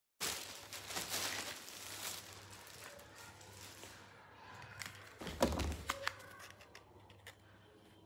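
Faint rustling and crinkling of hands handling a wire grid panel and craft items on a bed, with a soft thump about five and a half seconds in and a few small clicks.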